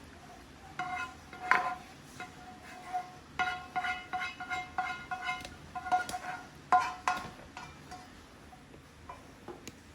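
A metal utensil clinking against cookware as the stir-fried chicken is served out onto a plate, each strike leaving a short ringing tone. The clinks come in clusters from about a second in until about seven and a half seconds in, then it goes quiet.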